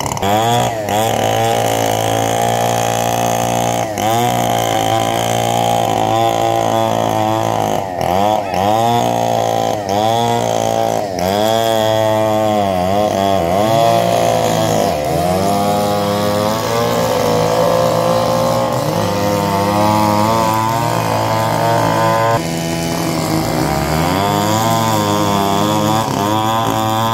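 Two-stroke chainsaw cutting through a fallen tree trunk. The engine runs at high revs and its pitch dips again and again as the chain bogs down in the wood, then climbs back.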